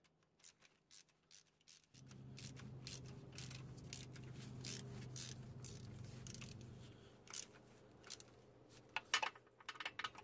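Ratchet on a long extension tightening starter mounting bolts, its pawl clicking in quick runs, louder and denser near the end. A low steady hum joins in about two seconds in and fades out around seven seconds.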